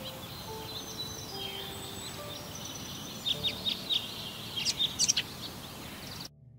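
Outdoor ambience of birds calling over a steady background hiss, with a quick run of short, sharp high chirps in the second half. It cuts off abruptly near the end.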